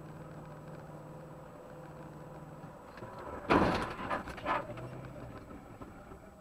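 Rear-end car collision heard from inside the striking car: steady road noise, then a sudden loud crash about three and a half seconds in as it hits the back of a red sedan. Two smaller knocks of crunching bodywork and debris follow within the next second.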